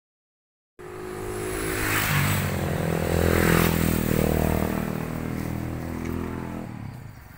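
A motor vehicle engine running steadily, growing louder to a peak about three and a half seconds in, then fading away.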